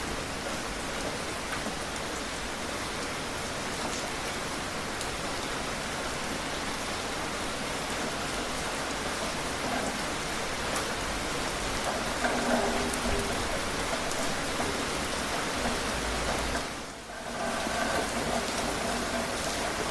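Steady rain falling on a surface, an even hiss of drops, briefly dropping away for a moment near the end before returning.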